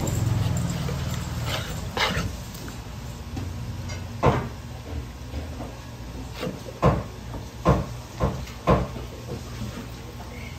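A heavy fish knife knocking sharply against a wooden cutting board as it chops through a mullet. There are about half a dozen knocks, the loudest four coming close together between about seven and nine seconds in, over a low hum that fades out in the first two seconds.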